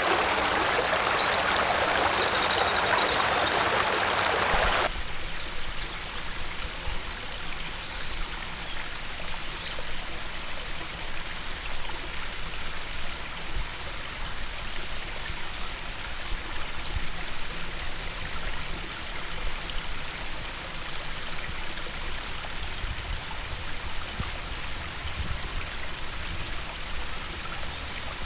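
Steady hiss of rain and running water, loud for about the first five seconds, then cutting suddenly to a softer, quieter rain.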